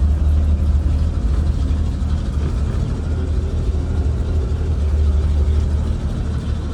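Six-cylinder engine of a 1947 Chevrolet truck running steadily, a low even rumble.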